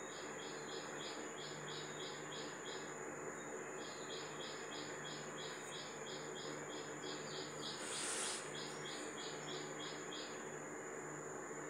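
Insect chirping in a steady run of short high pulses, about three a second, pausing briefly about three seconds in, over a faint steady high whine and a low hum. A brief scratchy rustle about eight seconds in.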